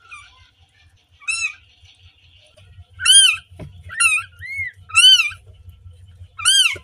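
Newborn kitten crying: about six short, high-pitched squeaky mews, each rising and falling in pitch. The first is faint, and the louder ones come from about three seconds in. A low steady rumble runs underneath.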